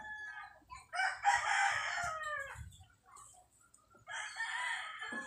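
A rooster crowing: one long call of nearly two seconds starting about a second in, falling in pitch at its end, and a second call near the end.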